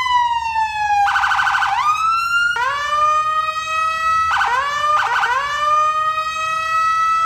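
Police car siren: a wail that falls for about a second, a fast warble, then rising wails that start over three times and hold a steady high note.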